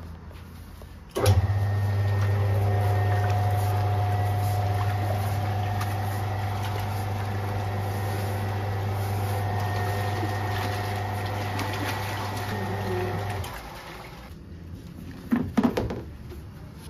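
Bakery dough mixer's electric motor switching on about a second in and running with a steady low hum as it churns water and flour in the bowl, then stopping shortly before the end. A couple of sharp knocks near the end come from a plastic bin lid being moved.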